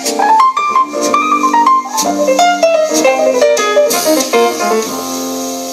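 Instrumental break of a pop song: a run of quick melodic keyboard-like notes over held chords, playing from a Sharp GF-9191X boombox.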